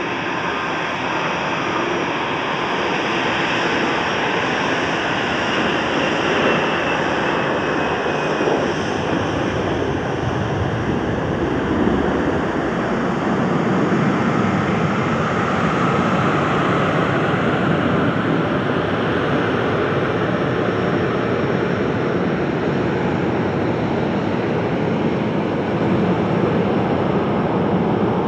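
Jet aircraft engines running steadily: a continuous rushing noise with a faint high whine, swelling slightly about halfway through.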